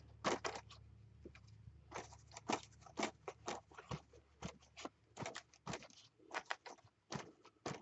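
Paint being dabbed onto a paper page: light, irregular taps a few times a second over a faint low hum.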